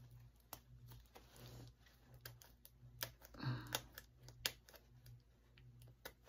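Faint, scattered clicks and crinkles of fingernails picking at the plastic shrink-wrap sealing a DVD case's slipcover.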